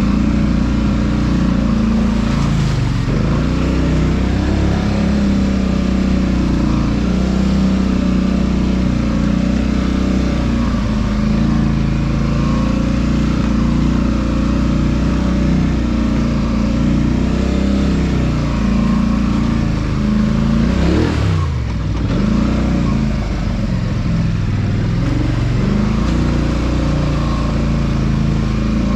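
ATV engine running steadily while riding. About 21 seconds in, the revs drop briefly and pick back up.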